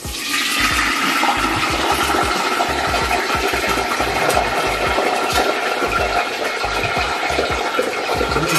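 Hot frying oil and freshly deep-fried food pouring from a frying pan into a metal colander, a steady sizzling rush that starts abruptly.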